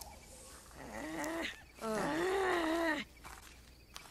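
An animal vocalising in two drawn-out pitched calls, a short one about a second in and a louder, longer one from about two seconds in.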